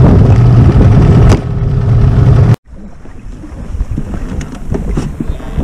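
A boat motor running steadily, dropping away a little over a second in; after a sudden cut, softer wind and water noise with a few light knocks.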